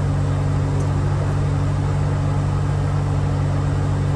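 Heavy truck's diesel engine idling, a steady low hum heard from inside the cab.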